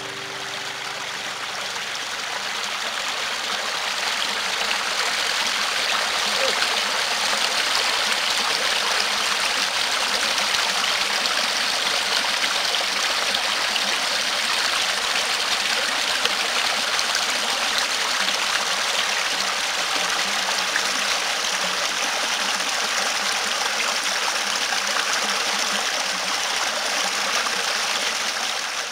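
Steady rush of running water, a stream flowing, swelling over the first few seconds and fading out near the end.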